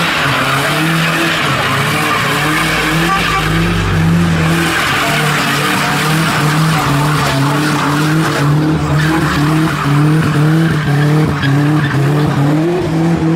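A car doing a burnout: its engine is held at a steady pitch with small repeated dips, under a continuous loud squeal and scrub from the spinning tyres.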